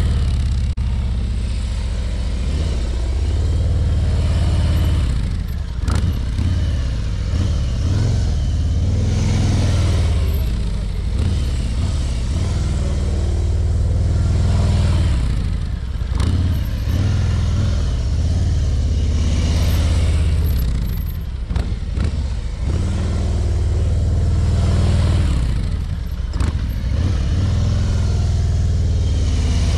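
Harley-Davidson Ultra Limited's V-twin engine at low speed, swelling and falling away about every five seconds as the bike loops past again and again, over a steady low rumble.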